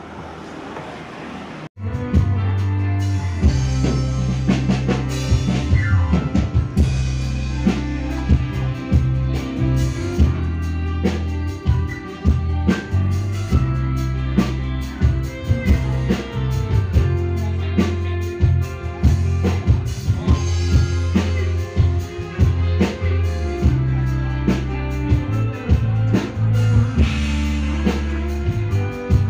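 Live orkes band music played through a large PA sound system during a sound check: drum kit with kick and snare over a steady, heavy bass line. It starts abruptly about two seconds in, after a moment of low background noise.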